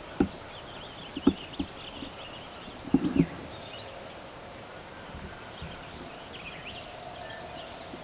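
Small birds chirping steadily in the background, with a few short, low thuds: one just after the start, a quick cluster at about a second and a half, and the loudest pair about three seconds in.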